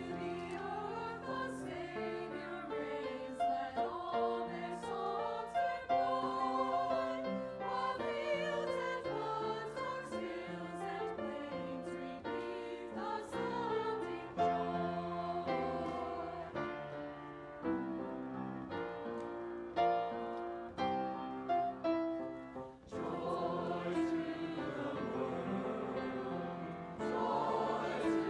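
Choir singing with piano accompaniment, a sung piece of held, changing notes.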